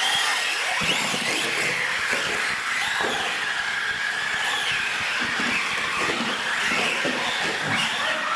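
Several small electric radio-controlled UTV trucks racing together: overlapping motor whines rising and falling in pitch as the throttles open and close.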